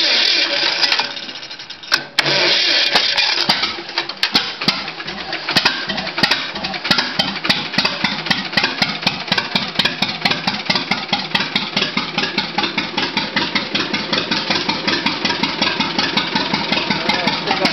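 1944 John Deere Model A's two-cylinder engine cranked over, a sharp crack, then catching and settling into an even putt-putt idle. It is running with its spark plug wires turned around into the right order, which cures the backfiring it had with them crossed.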